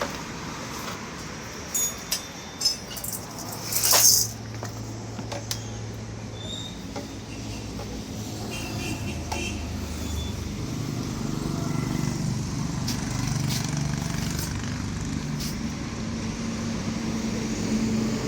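A motor vehicle engine running steadily nearby, with a few sharp clicks and one short, loud burst of noise about four seconds in.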